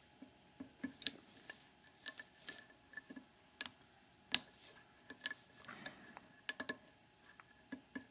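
A Master Lock No. 532 padlock being picked: a steel hook pick lifts the pin tumblers against a pry-bar tension tool, giving irregular sharp metallic clicks and ticks as pins are raised and set.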